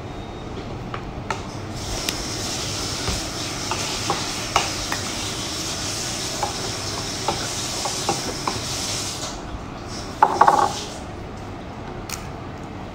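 Crispy fried rice crackers (cơm cháy) handled in a bowl: small clicks and crackles over a steady hiss, then a louder, brief crunchy crackle about ten seconds in as a piece is picked up.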